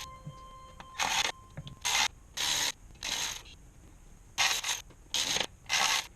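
Hand-tool work on metal: a series of short rasping strokes, about seven, spaced irregularly half a second to a second apart, like a ratchet being worked or a part being scraped.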